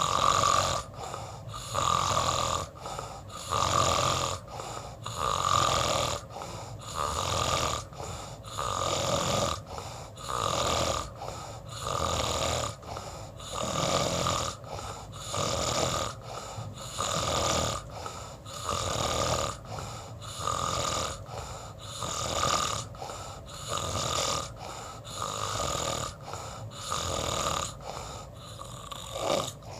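Snoring, steady and rhythmic, with a loud breath sound about once a second and a high tone in each breath.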